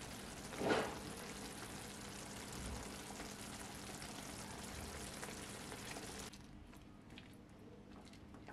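Tomato sauce simmering and sizzling in a frying pan, a steady hiss with a brief louder flare about a second in. The sizzle cuts off suddenly about two-thirds of the way through, leaving faint ticks.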